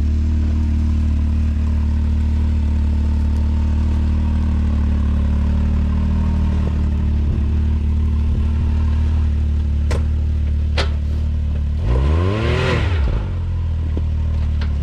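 Can-Am X3's turbocharged three-cylinder engine idling steadily, with two clicks about ten seconds in and one rev rising and falling in pitch shortly after.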